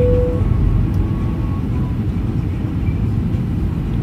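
Steady low rumble and rush of jet engines and airflow heard inside the cabin of an Airbus A320-family airliner on approach. A brief steady tone cuts off just after the start.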